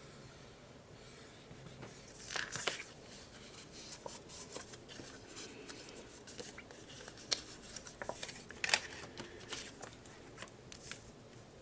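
Paper and card being handled: rustling, sliding and light taps in short bursts, with two louder crisp rustles, one about two seconds in and one near the end.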